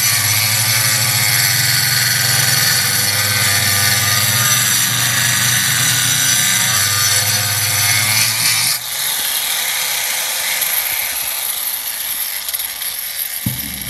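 Angle grinder with a diamond blade cutting fibre-cement (Hardie plank) board: a steady, loud high whine over a coarse grinding rasp. About nine seconds in, the grinding drops away as the blade clears the board, and the grinder runs on free with its high whine, slowly fading.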